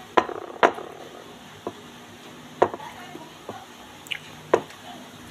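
Eating sounds close to the microphone as rice is eaten by hand from a plate: about half a dozen sharp clicks, irregularly spaced.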